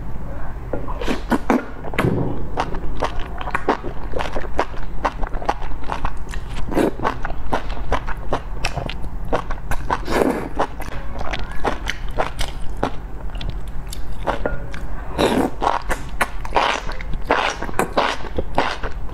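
Close-miked eating: noodles and enoki mushrooms slurped from a bowl of spicy broth and chewed, with many short wet mouth clicks and several longer slurps, over a steady low hum.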